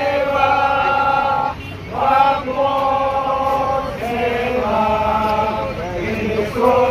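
A crowd of striking workers chanting a protest song together in unison, in held phrases of about two seconds with short breaks between them.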